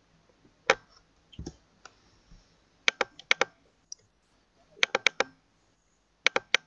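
Sharp clicks of a computer mouse and keyboard: a few single clicks, then quick clusters of three or four.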